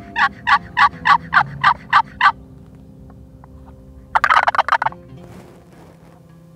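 Wooden turkey box call scraped on its second side, giving a run of about nine evenly spaced yelps, coarser than on its first side. About four seconds in comes a short, fast rattling burst.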